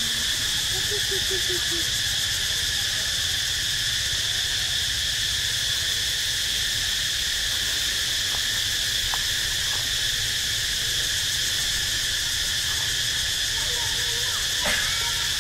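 Steady insect chorus: an unbroken shrill hiss and drone, like crickets or cicadas, that does not change.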